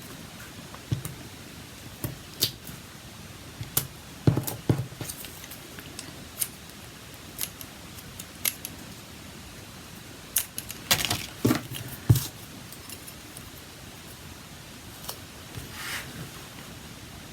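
Scattered light clicks and taps of small craft pieces and a tool being handled and pressed onto a paper card, with a quick cluster of taps about eleven seconds in and a soft paper rustle near the end.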